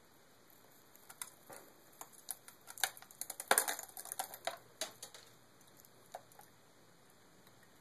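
Dried blessing herbs and seeds (lavender, chamomile, bay leaves, fennel seeds and the like) being sprinkled, landing as light, irregular ticks and patters on a paper house model and the cloth around it. The patter is thickest about three to four seconds in and dies away by about six seconds.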